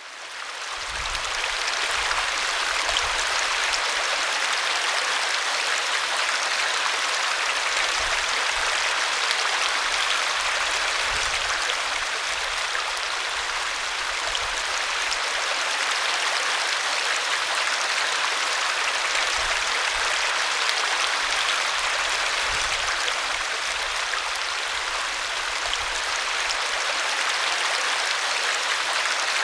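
Forest stream flowing: a steady, even rush and splash of running water that fades in over the first second or two.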